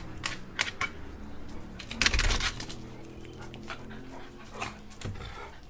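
A dog jumping up against a door, its paws knocking on it: scattered knocks, with a loud quick run of them about two seconds in. The dog also whines, drawn out, through the middle.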